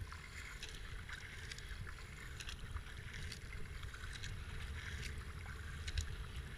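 Double-bladed kayak paddle dipping into calm river water, with short splashes about once a second over a steady low rumble, heard through a helmet-mounted GoPro.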